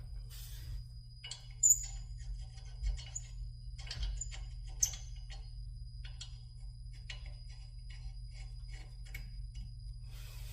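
Scattered small metal clicks and clinks from wheel-spacer parts and hardware being handled, with two sharper clinks about a second and a half and about five seconds in, over a steady low hum.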